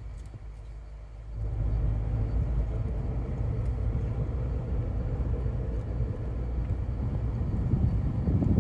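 Low rumble of road and engine noise inside a moving SUV, which steps up sharply about a second and a half in and then holds steady.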